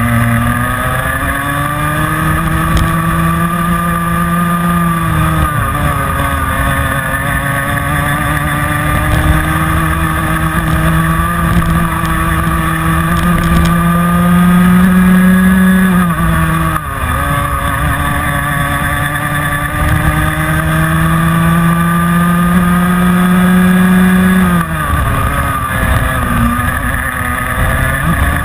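Rotax 125cc two-stroke Minimax kart engine heard from onboard at racing speed, its pitch climbing slowly through the revs down each straight. It drops off sharply for corners about five seconds in, about sixteen seconds in and near the end, then pulls up again.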